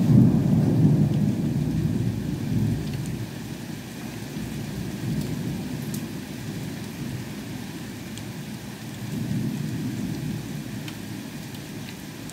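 Thunder rumbling: a loud peal breaks in suddenly at the start and rolls away over a few seconds, with a second, weaker swell later on. Underneath, heavy rain and hail pour steadily, with a few sharp ticks.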